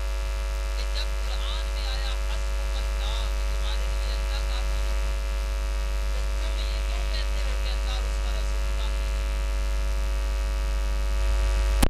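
Steady electrical mains hum and buzz from a public-address sound system, with faint high chirps in the background. It cuts off abruptly near the end.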